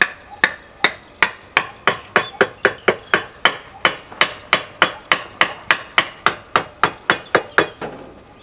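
A hammer striking in a steady run of about twenty blows, roughly three a second, each with a short ring, stopping shortly before the end. The blows drive wooden chocks in between a steel girder and the stone wall above it, to support the stonework.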